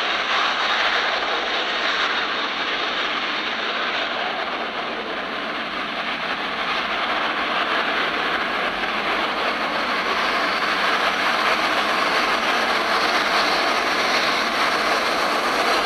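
Airbus A320-family airliner's jet engines running at low taxi power, a steady rushing hum as the aircraft taxis in to its gate.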